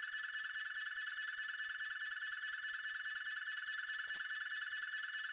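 Stepmores SM-4040 CNC router's spindle milling hardened tool steel with a small end mill: a steady high-pitched whine with a fast, even warble.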